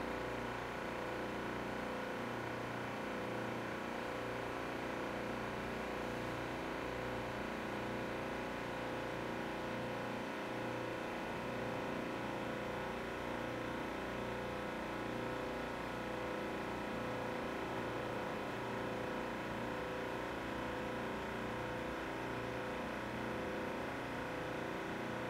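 A steady, machine-like hum made of many held tones, with a low throb that pulses about once a second.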